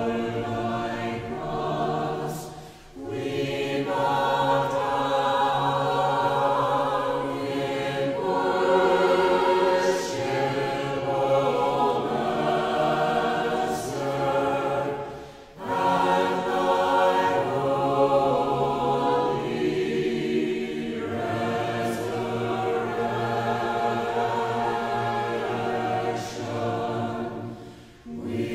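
Orthodox church choir chanting a hymn a cappella in several voices, in long sustained phrases. The phrases are broken by short breath pauses about 3 seconds in, about halfway through and near the end.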